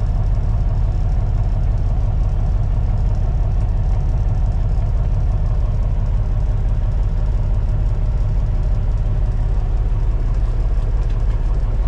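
Kenworth T800's Caterpillar C15 diesel idling steadily, heard from inside the cab.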